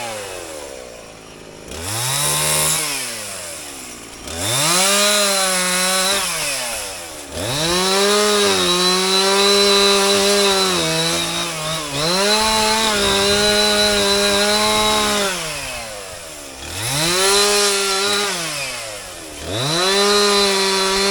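Chainsaw limbing a fallen pine log. The engine revs up to full speed and holds for a second or several while it cuts, then drops back toward idle between cuts, about six times over.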